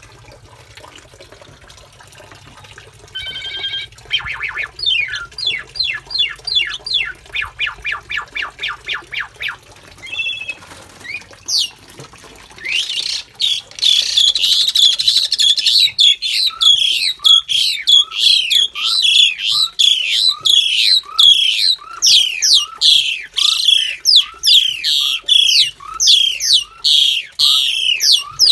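Javan pied starlings (jalak suren) calling in a cage: first a run of quick repeated notes, then, from about halfway, a loud, unbroken series of harsh chattering calls, about two a second. The calling is part of the pair's courtship ritual.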